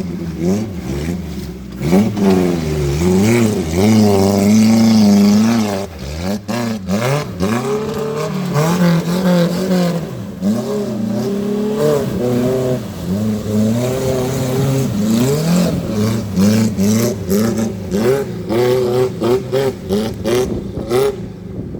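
Off-road vehicle's engine revving up and falling back again and again, with a few sharp clattering knocks about six seconds in.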